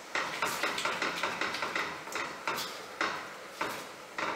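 A spatula stirring thick bolognese sauce in a stainless steel pan, scraping and knocking against the pan's sides and base in quick strokes: several a second at first, then more spaced out.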